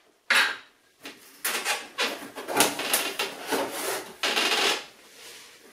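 Rough scraping and rubbing of wood and board in irregular bursts, with knocks, as the back panel of a kitchen sink base cabinet is worked loose by hand.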